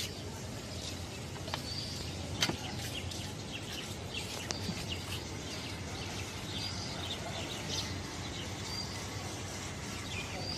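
Outdoor street ambience: steady background noise with small birds chirping now and then, and a few sharp clicks in the first half.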